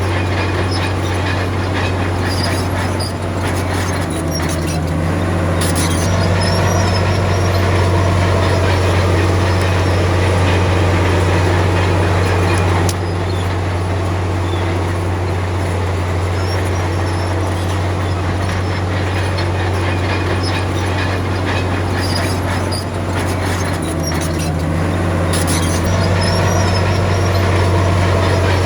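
Heavy diesel engine of a crawler bulldozer running steadily with a deep, constant hum, its load swelling twice, with a few sharp metallic clanks.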